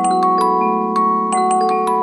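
Music box playing a melody: bright plucked steel-comb notes, about four or five a second, each ringing on over lower sustained accompanying notes.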